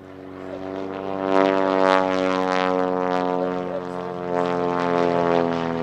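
Great Lakes biplane's piston engine and propeller in aerobatic flight: a steady, even-pitched drone that swells sharply about a second and a half in as the plane comes close, then stays loud.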